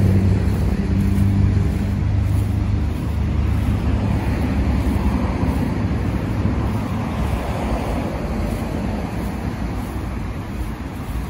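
Road traffic: a vehicle engine's low hum fades over the first few seconds, leaving a steady rush of traffic noise.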